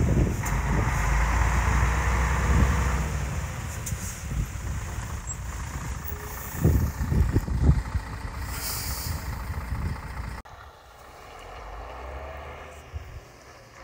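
Scania R113 tractor unit's 11-litre six-cylinder diesel running as it drives past pulling a low-loader trailer, loud at first and fading as it moves off. A few heavy knocks come partway through, followed by a short hiss about nine seconds in. The sound drops off suddenly near the end to a quieter, steady low rumble.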